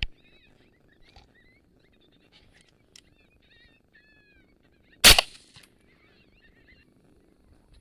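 A single rifle shot about five seconds in, with a brief echoing tail, fired through a thermal scope at a coyote. A sharper, smaller crack comes right at the start, and faint short high calls sound in between.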